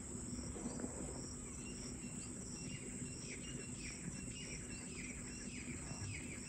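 Crickets chirring in a steady high drone. From about two and a half seconds in, a bird calls a quick series of short falling notes, repeated evenly.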